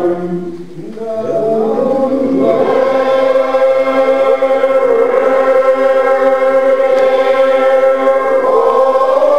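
A large congregation of Old Order Mennonites, several hundred voices, singing a hymn unaccompanied in slow, long-held notes. Near the start the singing briefly drops away between phrases, then the voices come back in one after another.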